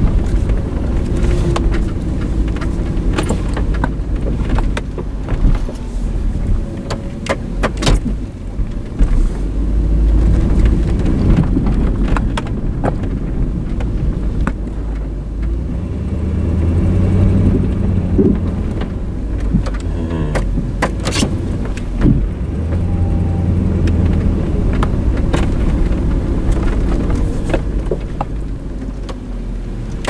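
Plow truck's engine running under load, swelling and easing off repeatedly as it pushes its front plow into a heavily drifted snowbank, just barely getting through. A constant low rumble runs underneath, with scattered sharp clicks and knocks.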